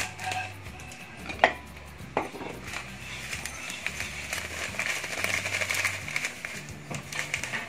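Plastic breadcrumb packet crinkling as it is torn open and handled, with a sharp knock about a second and a half in, then a crackly hiss as breadcrumbs pour from the packet into a ceramic bowl.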